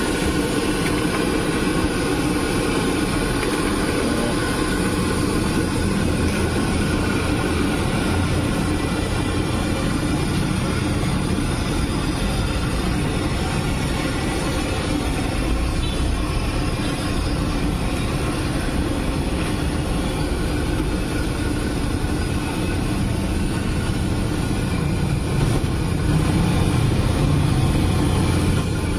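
A large wok of rice-vermicelli-stuffed tofu deep-frying in bubbling oil, a steady sizzle over a constant low rumble.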